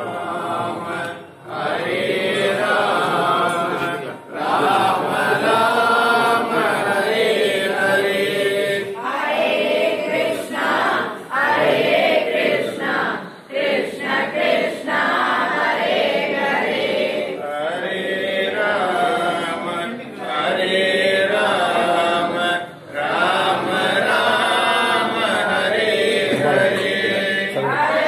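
A group of voices chanting devotional verses together in a steady sung recitation, pausing briefly for breath every few seconds.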